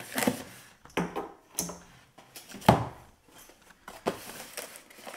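Long cardboard box being opened by hand: a string of scrapes, knocks and rustles from the flaps and sides, the loudest about two and a half seconds in.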